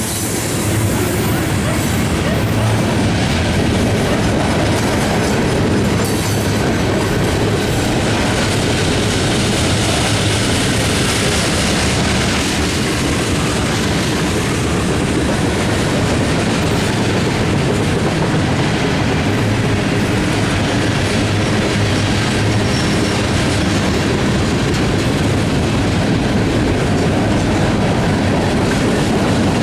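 Freight train cars rolling past at speed: steady wheel-on-rail rumble with clickety-clack from the wheels over the rail joints.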